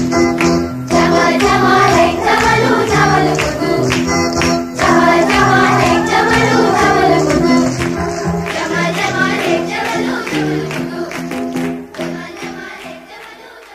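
A traditional Iranian Bandari song in a modern film arrangement: a children's and women's choir sings over a steady bass and beat. The music grows quieter near the end.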